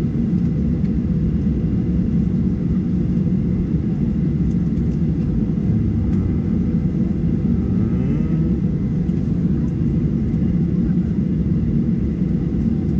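Airliner cabin noise heard from a window seat: the jet engines and airflow make a steady low rumble as the plane moves slowly on the runway.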